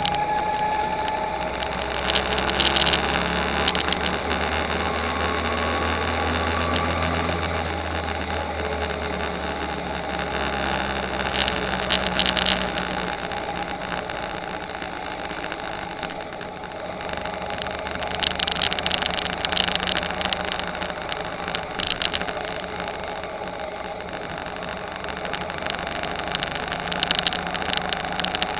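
Rental go-kart engine running under way, heard from a camera on the kart. Its pitch rises and falls with speed, and there are several bursts of rattling clicks.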